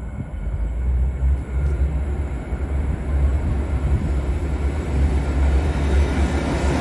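Train approaching, its low rumble growing steadily louder.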